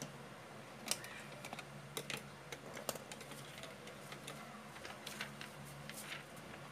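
Sheets of printed photo paper being slid, shuffled and tapped on a desk: scattered light taps and paper rustles, about a dozen, over a faint steady low hum.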